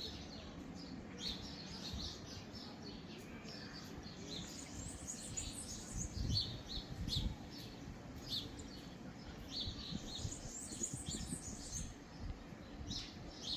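Small birds chirping, many short high calls repeated throughout, over a low rumble of outdoor noise with a few low thumps about halfway through.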